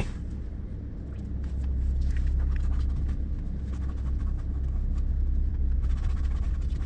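Car engine idling, a steady low rumble heard from inside the cabin, with scattered light clicks and rustles of handling.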